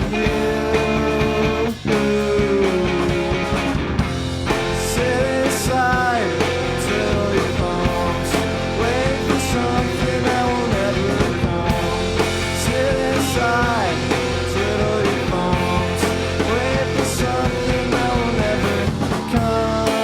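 A rock band playing live, with guitar over a steady beat and a melody line that slides up and down in pitch.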